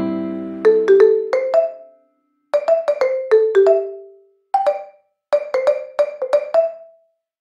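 Background music: short phrases of quick, struck notes that ring and fade, broken by several brief silences.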